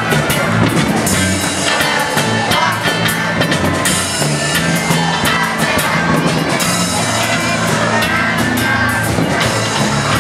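Rock and roll song played by a live band: drum kit, guitar and electric bass, with singing.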